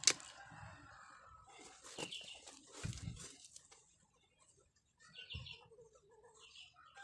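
Birds chirping in short scattered calls, with a sharp click right at the start and faint rustling of denim as the jeans are handled.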